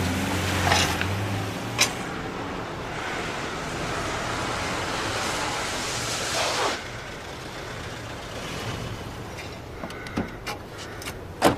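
A motor vehicle: a low engine hum at first, then a rush of noise for about four seconds that cuts off suddenly, with a few sharp clicks along the way.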